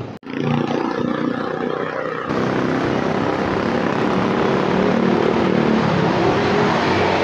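A motor engine running steadily, a continuous drone, with a brief dropout just after the start.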